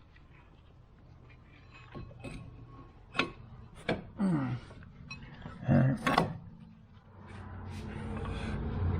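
Scattered knocks and clanks of hand tools and metal parts, loudest about six seconds in, followed by a low steady rumble that builds toward the end.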